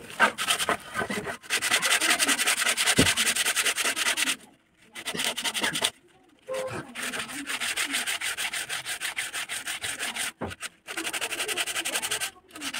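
Hand sanding a carved wooden flower relief with folded sandpaper: quick back-and-forth scratchy rubbing strokes in bouts, stopping briefly a few times.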